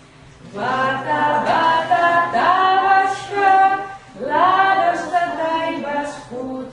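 A class of children singing together without accompaniment, in long held notes that slide up into each phrase, as a voice warm-up.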